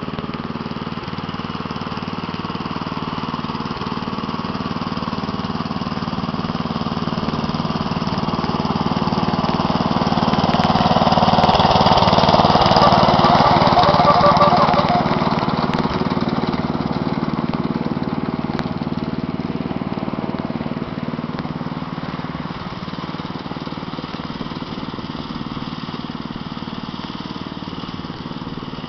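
Wheel Horse 211-3 garden tractor's 11 hp Briggs and Stratton single-cylinder petrol engine running steadily under way. It grows louder to a peak about midway and fades again as the tractor drives past.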